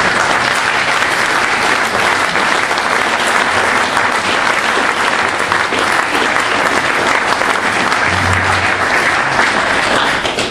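A large congregation applauding steadily, dense hand-clapping from many people.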